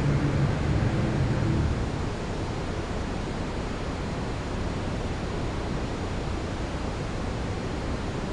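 Steady hiss-like background noise, with a low rumble that fades out about two seconds in.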